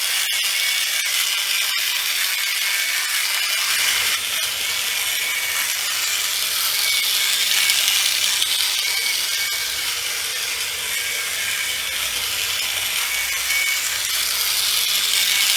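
Original Plarail C-62 toy locomotive's small battery motor and plastic gears running with a steady whirring rattle.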